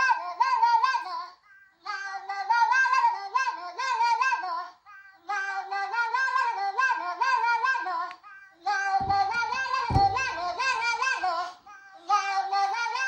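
Smartphone alert melody playing from the phone's speaker: a short, bright electronic tune of quick notes that repeats about every three and a half seconds with brief gaps. A low thud comes about two-thirds of the way through.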